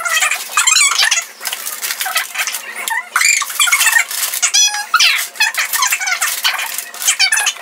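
Plastic baby-swing parts and their packaging being handled: a quick run of high squeaks with rattling, and paper rustling in between.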